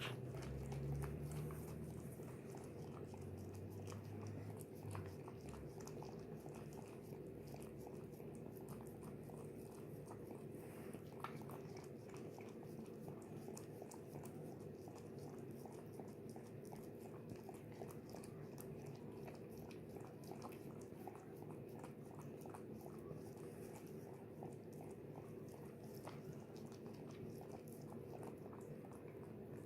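A mother dog chewing and mouthing during whelping: a steady run of faint, irregular wet clicks over a low steady hum.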